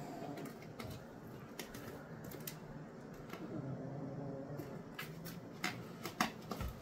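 Scattered light clicks, taps and rustles of a cat rolling and scuffling against a wall on a wood floor, the sharpest few clicks near the end, over a faint low hum.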